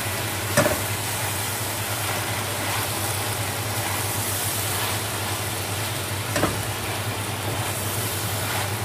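Fresh molokhia (jute mallow) leaves being stirred and turned with a spoon in a pot, over chicken frying with a steady sizzle underneath. The spoon knocks against the pot twice, about half a second in and again around six seconds.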